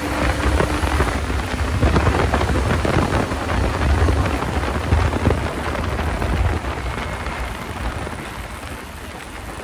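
Wind rushing over the microphone of a moving motorcycle, a heavy rumbling buffet with the bike's running noise underneath, easing off over the last few seconds.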